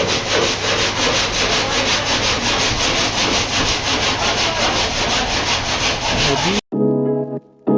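Steady abrasive sanding of a car door panel, a rasping rub with an even, fast pulse. It cuts off abruptly about a second before the end, and plucked, piano-like music notes take over.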